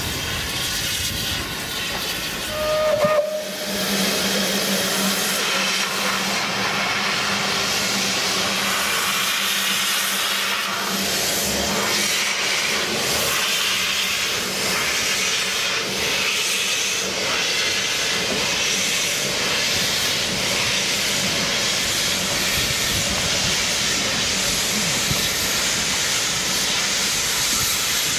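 Narrow-gauge steam locomotive LYD giving a short toot on its steam whistle about three seconds in, followed by a loud, steady hiss of escaping steam as it stands wreathed in steam.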